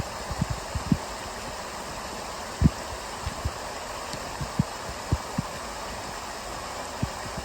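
Steady hiss of rain falling through the forest, with irregular low thumps on the microphone now and then.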